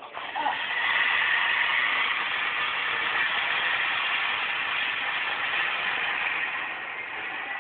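Monster truck engine noise from a video playing through a laptop's small speakers, starting abruptly about half a second in and then holding steady.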